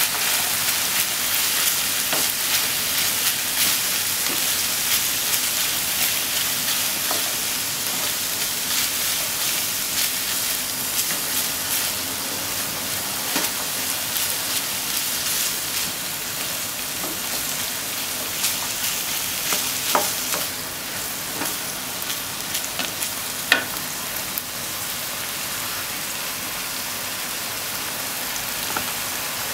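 Diced onion and ground pork sizzling in a frying pan with a steady hiss while being stirred with a plastic spatula, with scattered scrapes and clicks of the spatula on the pan and a sharper tap a little past three-quarters of the way through.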